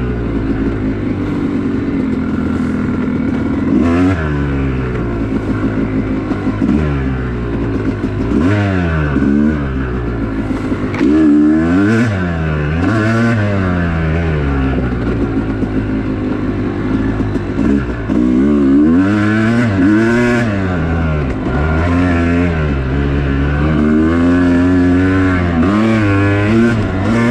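Yamaha YZ250X two-stroke dirt bike ridden at full throttle, its engine revving up and dropping back again and again as the rider accelerates and shifts.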